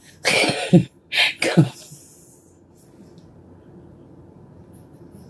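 A woman's breathy, snorting laughter in two short bursts through the nose, then only a quiet room hum.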